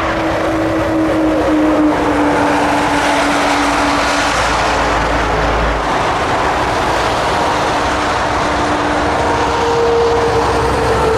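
Airbus A300 twin turbofan jet engines running loudly as the airliner rolls along the runway: a steady jet noise with a whine that slides slowly down in pitch, and a higher whine coming in near the end.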